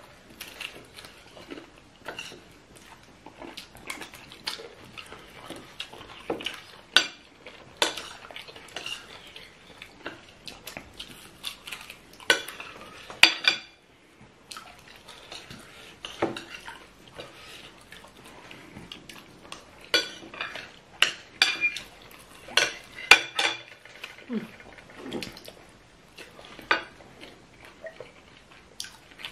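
Metal spoon and fork clinking and scraping against plates while eating, a string of sharp clinks that come thickest and loudest in two clusters, about a third of the way in and again about two-thirds through.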